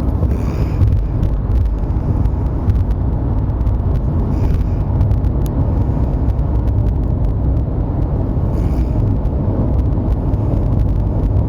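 A man snoring in his sleep, three snores about four seconds apart, over the steady low rumble of a car driving on the road.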